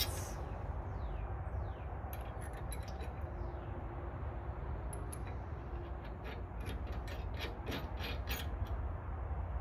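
Scattered light metallic clicks of lock washers and nuts being fitted by hand onto the bumper bolts holding the luggage-rack extender brackets, over a steady low background rumble.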